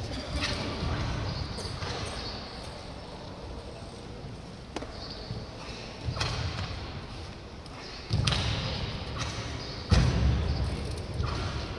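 A barefoot karateka performing a Shotokan kata on a wooden sports-hall floor: sudden thuds and snaps of stamping feet and a cracking gi on each technique, about five in all, ringing in the large hall. The loudest comes near the end.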